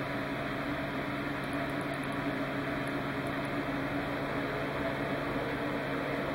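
Steady machine hum with a constant low drone that does not change in pitch or level.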